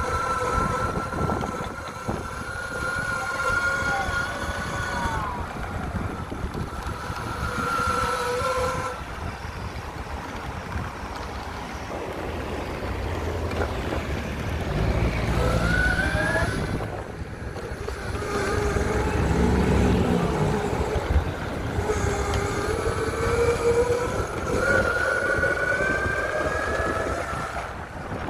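Electric mountainboard's motors whining as it rides, the pitch rising and falling with speed, over a rough rumble from the off-road wheels that grows heavier in the middle.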